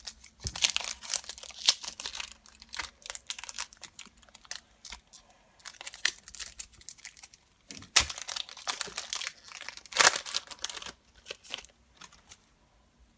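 A foil trading-card pack wrapper being torn open and crinkled, with the cards handled and shuffled. There are irregular runs of crackles and rustles, with a few sharper, louder crinkles in the second half.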